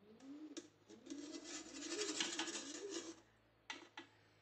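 Metal spatula scraping across the perforated aluminium tray of a momo steamer as steamed dumplings are lifted off it: a rasping scrape with a wavering squeal, strongest through the middle, then two light metal clicks near the end.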